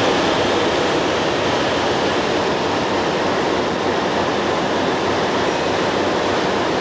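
Diesel locomotive running steadily, a loud, constant noise that does not rise or fall.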